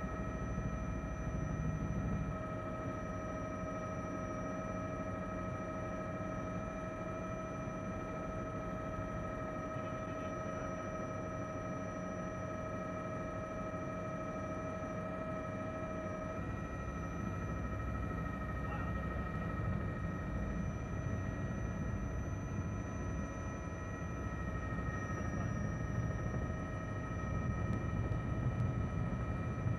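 Steady engine and rotor drone of a news helicopter, heard from inside the aircraft, with constant whining tones over it. The drone's character shifts about halfway through.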